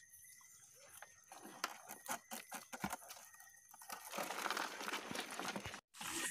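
A crab being shaken from a mesh net trap into a plastic bucket: a string of sharp knocks and rattles against the plastic, then a denser rustling scrape about four seconds in as the bucket is handled.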